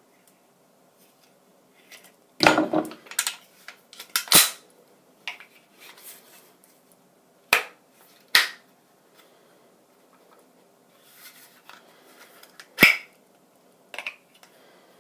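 Sharp clicks and clacks of carry gear being handled, a few seconds apart, with faint rustling between, as a carrier or holster is worked and snapped.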